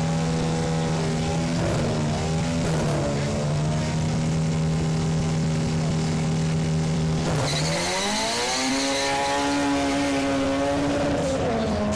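Drag car's engine held at steady high revs on the start line, then launching about seven seconds in with a brief tyre squeal. The engine note climbs and holds at a higher pitch, with a short dip near the end as it shifts gear.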